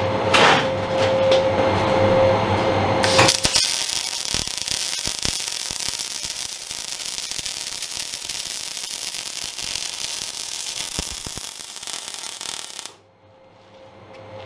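MIG welding arc crackling and hissing on a corner weld for about ten seconds, starting about three seconds in and cutting off sharply near the end. Before it, a steady machine hum with a thin whine.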